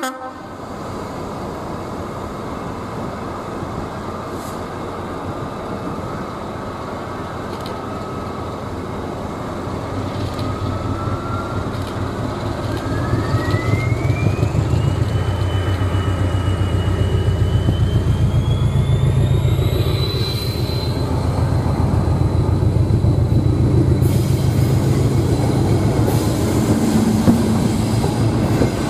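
Class 73 locomotive and two 'Thumper' diesel-electric multiple unit cars pulling away from a standstill and passing close by. A low, rhythmic diesel engine throb grows louder as the train gets under way. A thin whine rises steadily in pitch for about ten seconds, then holds one note.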